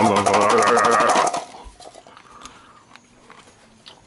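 Garlic cloves rattling rapidly inside a clear glass bowl shaken hard to loosen their skins, under a man's wavering, drawn-out vocal 'oi'. Both stop about a second and a quarter in, leaving only faint clicks and handling of the bowl.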